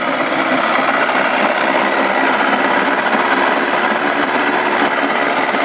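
Johnson 25 hp two-stroke outboard motor running steadily, its lower unit in a barrel of water.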